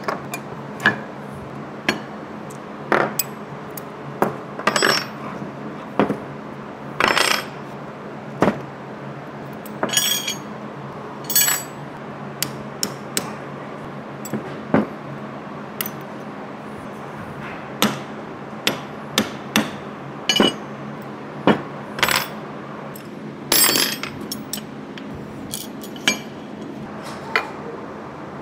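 Irregular clinks and knocks of machined aluminium plates, gearbox housings and hand tools being handled and set down on a workbench, some thirty sharp taps spread unevenly, over a steady low shop hum.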